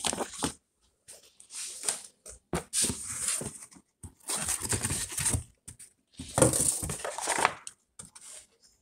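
Cardboard box flaps and paper inserts rustling as a delivery box is opened and a feeding guide is lifted out, in several short bursts, with a dog sniffing close to the box.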